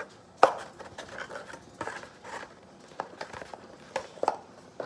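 Trading cards and their box being handled on a table: a string of small taps and clicks, the sharpest about half a second in.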